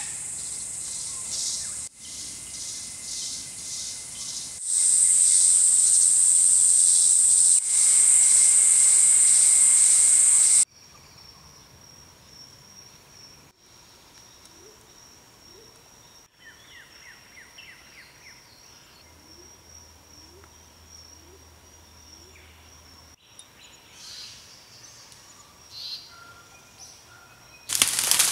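Loud, high-pitched pulsing insect chorus in forest that cuts off abruptly about ten seconds in. It gives way to a quieter single steady high insect whine with a few short bird chirps. Near the end comes loud cracking and crashing of sticks and thatch as the ruined wattle-and-daub hut's roof is pulled down.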